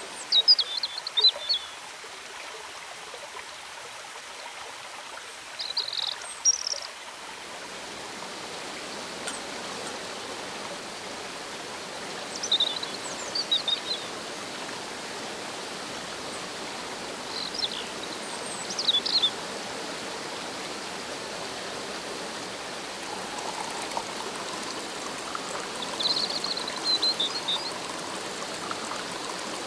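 Rushing river water and a small waterfall make a steady rush, over which a bird gives short clusters of high chirping calls about five times, the loudest sounds.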